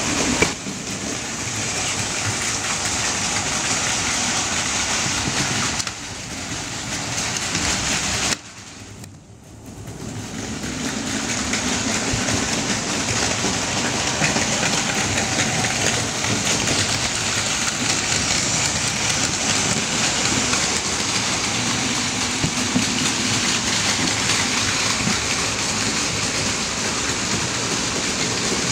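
Plarail Advance battery-powered toy Shinkansen trains running on plastic track: a steady, noisy run of motors and wheels. It dips briefly about six seconds in and drops lower for a couple of seconds around eight to ten seconds in.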